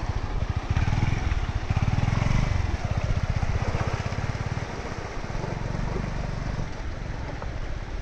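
Rushing water of a waterfall: a steady noisy roar with a heavy, fluctuating low rumble.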